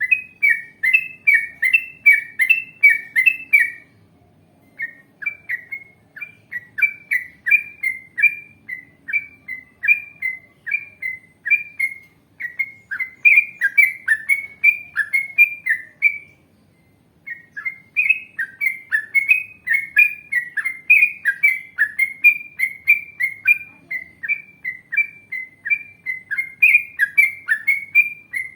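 Yellow-vented bulbul (trucukan) singing long, rapid runs of bubbling, chattering notes, about three a second, with two short breaks.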